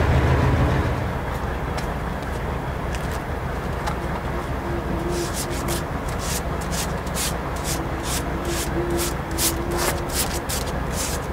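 Sandpaper rubbing by hand on cured epoxy filler on a fibreglass sailboat's hull bottom, in a quick run of short strokes, about three a second, starting about five seconds in. At the start a mobile crane's engine is running; it drops away about a second in.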